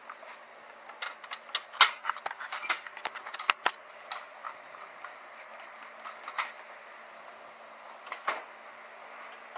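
Irregular sharp clicks and taps of hand tools being handled, dense for a few seconds and then a few more scattered ones.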